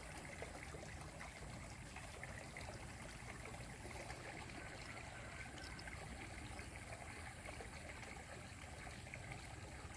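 Faint, steady outdoor ambience: an even hiss with a few soft scattered ticks.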